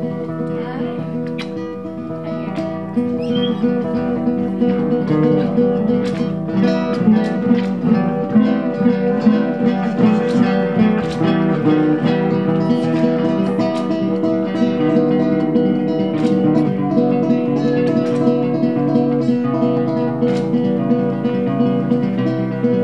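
Acoustic guitar playing continuously, many plucked notes and chords ringing.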